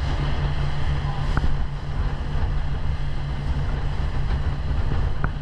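Inflatable dive boat's outboard motor running steadily underway, a constant low hum, with wind noise on the microphone.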